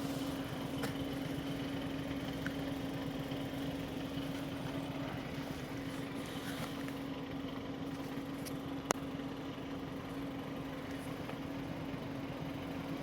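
Fast, steady knocking under the right rear wheel arch of a parked Skoda Octavia A7, over a constant hum, with one sharp click about nine seconds in. The owner first heard it after a hard landing at speed that he thinks bottomed out the suspension, and has ruled out the exhaust silencer.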